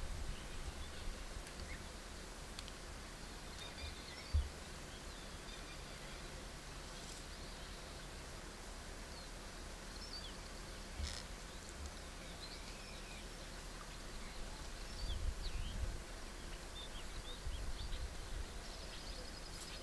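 Forest ambience: scattered short bird chirps over a steady low rumble, with a single dull thump about four seconds in and a few brief swells of the low rumble later on.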